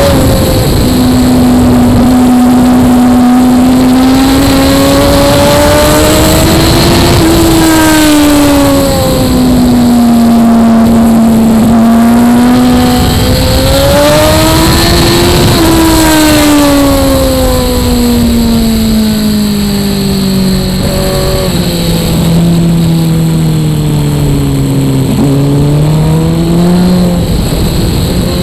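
Onboard sound of a litre-class inline-four sport bike at speed on a race circuit. The engine note rises and falls in long sweeps through the corners, with sudden steps in pitch from gear changes in the last third. Heavy wind rush lies over it.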